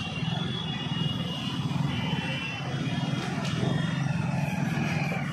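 A state transport bus's engine running close by as the bus pulls past, a steady low rumble that fades as it goes.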